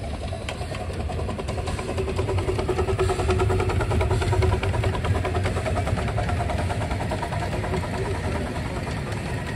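Small live-steam locomotive and its train of loaded passenger cars rolling past, with many quick clicks of wheels over the rail joints. It is loudest about three to four seconds in as the engine goes by.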